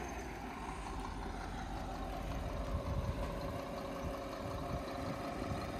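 Heavy truck diesel engines, the truck crane and concrete mixer truck on the site, running steadily at idle with a low rumble.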